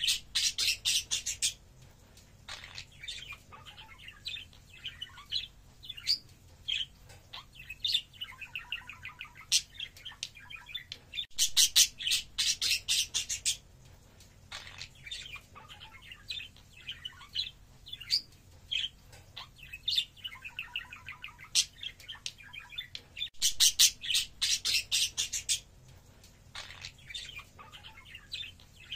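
Budgerigars chattering and warbling in a run of soft chirps. Three times, about twelve seconds apart, this breaks into a loud burst of rapid, harsh chirping that lasts a couple of seconds.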